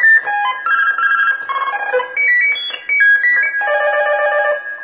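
Electronic beep melody from the sound chip of a homemade CB radio desk microphone: a quick run of clean electronic tones stepping up and down in pitch, then a tone held for about a second near the end.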